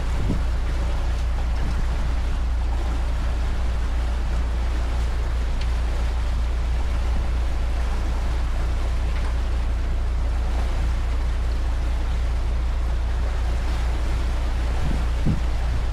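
Motor cruiser's Volvo Penta inboard engine droning steadily under way, with water rushing past the hull.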